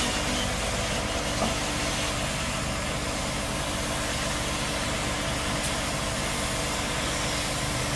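Truck-mounted hydraulic crane's engine running steadily, powering the crane while it lowers a sailboat in a lifting frame, with a steady hiss over it.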